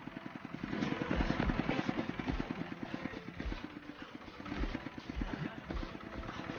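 A small engine running steadily, its firing heard as rapid, even pulses.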